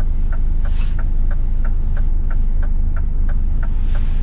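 Scania S500 truck's V8 diesel running low and steady, heard from inside the cab, with a light, even clicking of the indicator flasher about three times a second.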